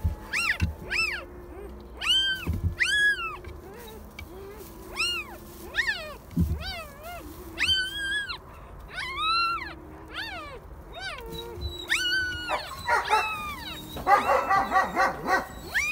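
Day-old German Shepherd puppies crying: a string of short, high, rising-and-falling squeals, one after another. Near the end the cries come quickly and run together into a stuttering whine, with a few soft low thumps early on.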